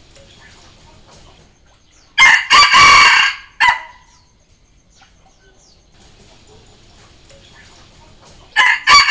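Red junglefowl rooster crowing, a decoy call used to lure wild junglefowl: one crow about two seconds in with a short note just after it, and a second crow starting near the end.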